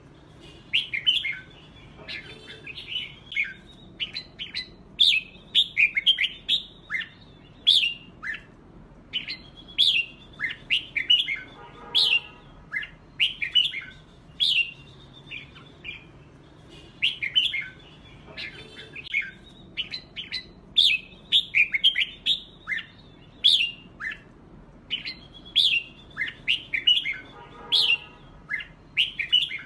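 Red-whiskered bulbuls singing in a competitive bout: quick, bright whistled phrases one after another, with a lower call about twelve seconds in and again near the end.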